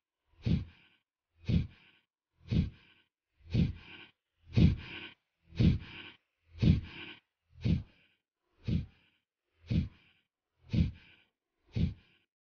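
Kapalbhati breathing: sharp, forceful exhalations through the nose in a steady rhythm of about one stroke a second, twelve in all. The strokes stop near the end.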